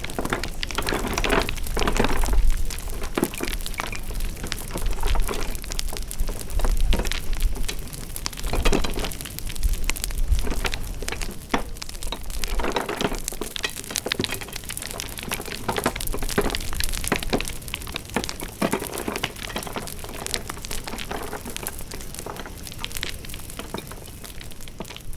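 Wood fire crackling: a steady stream of sharp pops and snaps over a low rumble that swells and fades.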